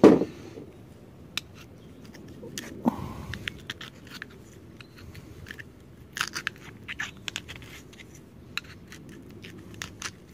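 A flathead screwdriver prying and scraping at the copper winding of a coil taken from a CRT television, making irregular clicks, scratches and crunches as the wire is worked loose. A loud thump right at the start and a smaller knock about three seconds in.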